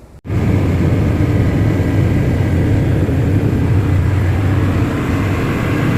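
Dubai Metro train running, heard from inside the carriage as a loud, steady rumble and rush that starts suddenly just after a cut.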